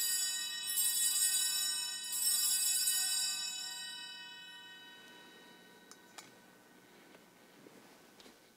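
Altar bells rung at the elevation of the host during the consecration. The bells, already ringing, are shaken again about one and two seconds in, and the ringing dies away by about five seconds in.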